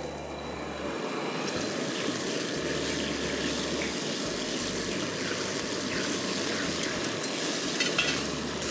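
Water poured in a steady stream from a steel mug into a steel kadai holding ghee, a continuous splashing noise.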